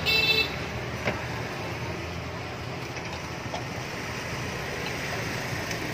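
Steady street traffic noise from passing motorbikes, with a short horn toot right at the start and a light click about a second in.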